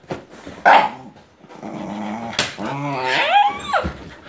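Dogs at play: a sharp bark about half a second in, then a couple of seconds of play-growling that rises in pitch into a yelping whine and cuts off near the end.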